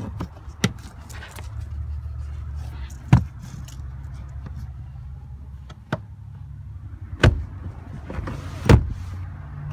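Scattered knocks and clunks as the hinged panels of a pickup's rear-floor storage tray are handled, about five in all with the loudest two near the end, over a steady low hum.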